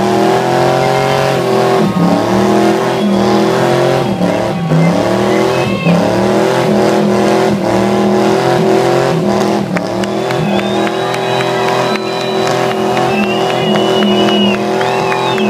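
1988 Ford Fox Body Mustang's 5.0 V8 held at high revs through a burnout, its pitch sagging and climbing back every second or two as the rear tyres spin. From about ten seconds in, high thin tyre squeal rides over the engine.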